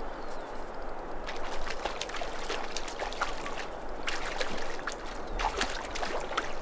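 A hooked brown trout splashing at the surface of the water as it is played on a spinning rod, in irregular splashes, over the steady rush of the river current.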